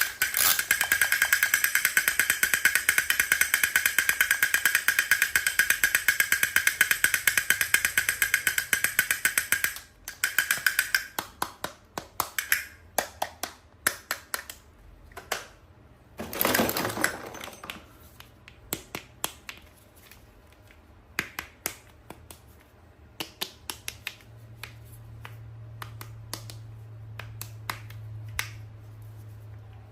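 Fast, dense clicking for about ten seconds, then slower scattered clicks and taps. There is a short scratchy rustle about sixteen seconds in, and a low hum in the last few seconds.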